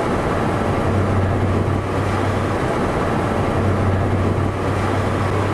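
Steady car noise heard from inside the vehicle: a low, even engine hum under a constant rush of noise.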